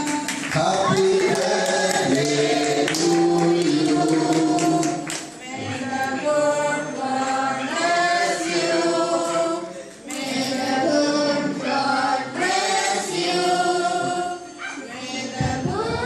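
A group of people singing together in phrases of about four to five seconds, with short breaks between them.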